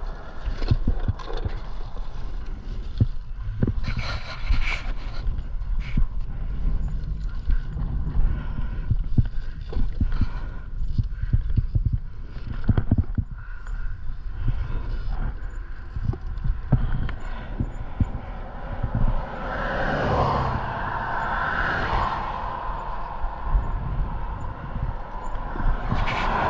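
Outdoor roadside noise: a steady low rumble on the microphone with many knocks and scrapes of handling, and a vehicle passing, rising and fading about twenty seconds in.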